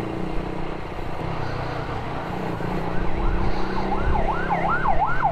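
A siren in a fast yelp, its pitch sweeping up and down about three times a second, growing louder through the second half. Under it, the steady running of a Motorstar Z200s motorcycle's engine.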